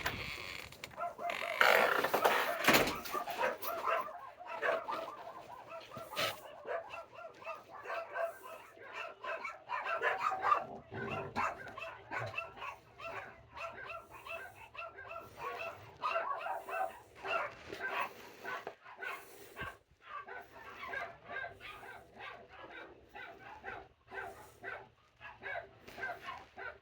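Dogs barking and yipping over and over in quick, short calls, loudest in the first few seconds.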